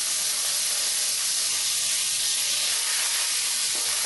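Fresh curry leaves sizzling in hot sesame oil in a wok during a tempering of mustard seeds, cumin, urad dal and dried red chilli: a loud, steady, high hiss.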